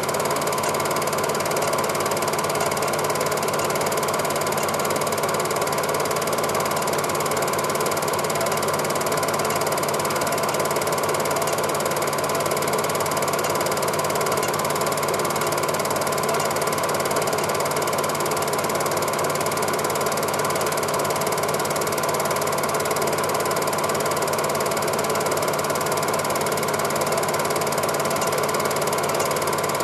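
Cine film projector running: a steady, rapid mechanical clatter from the film-advance mechanism, with a constant motor hum under it.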